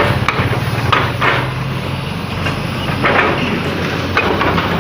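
A backhoe's diesel engine running steadily, with scattered knocks and clatter of concrete being broken up in demolition.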